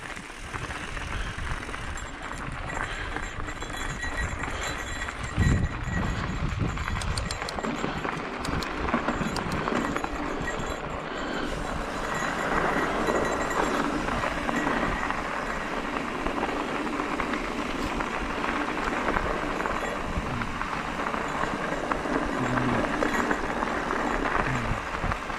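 A mountain bike rolling along a dirt singletrack: knobby tyres crunching over the trail and the bike rattling over small bumps, with wind rumbling on the camera mic. One sharp knock comes about five and a half seconds in.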